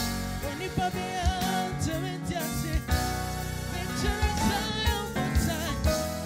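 Live gospel band playing: drum kit, electric guitar and keyboard, with a singer's voice wavering over it.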